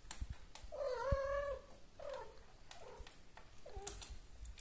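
Kitten meowing: one long meow about a second in, followed by three shorter, fainter meows, with a few light clicks around them.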